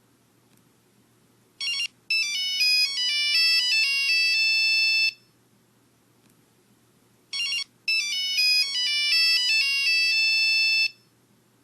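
Phone ringtone: a short electronic chirp, then a quick melody of high electronic notes lasting about three seconds. The pattern plays twice with a pause between.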